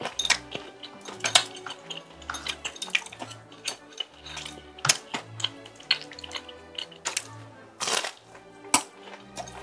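Light background music with a bass line, over close-miked eating: wooden chopsticks clicking against a bowl and the chewing and biting of tteokbokki and fried tempura.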